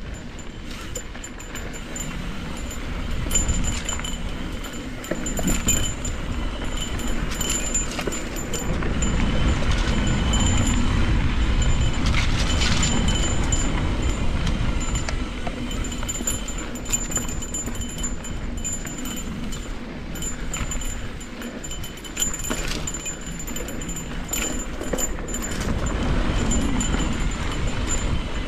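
Full-suspension mountain bike ridden along a dirt trail: tyres rolling over dirt and rock, with constant clinking and rattling from the chain and frame, over a low rumble of wind on the microphone that grows louder in the middle.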